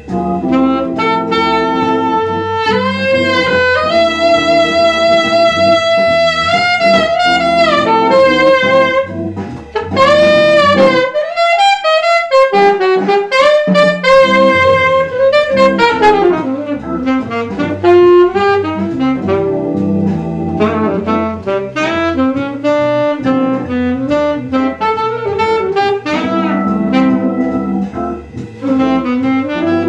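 Selmer alto saxophone playing a jazz melody with slides and bends between notes, over an accompaniment track with a bass line. The accompaniment drops out for a couple of seconds about midway while the saxophone holds on.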